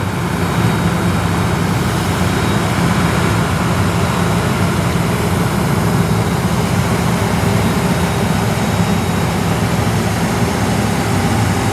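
JCB excavator's diesel engine running steadily.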